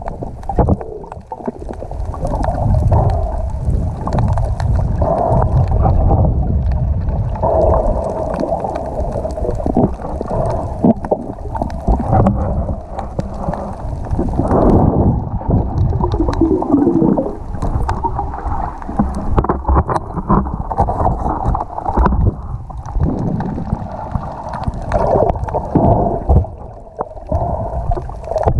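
Muffled underwater water noise heard through a submerged camera's housing: steady sloshing and gurgling water with scattered faint clicks.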